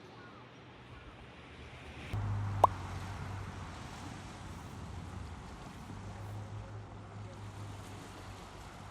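A low, steady engine hum that starts suddenly about two seconds in and runs on, with one sharp click just after it begins.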